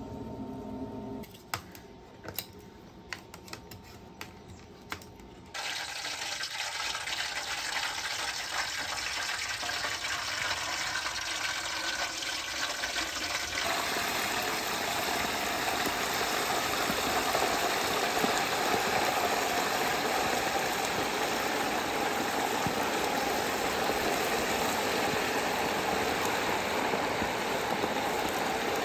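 Whole turkey deep-frying in a tall pot of hot oil: a steady sizzling and bubbling that starts a few seconds in and grows louder about halfway through. Before it come a few light clicks in near quiet.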